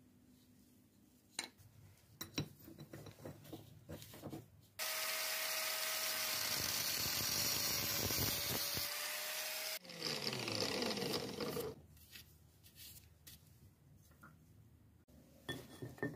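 Angle grinder cutting through a brass hex bar clamped in a vise, slitting it lengthwise into halves for a split bushing. It runs steadily for about five seconds, then is switched off and winds down with a falling whine. Before the cut come light clicks and brushing sounds as chips are swept off a lathe chuck.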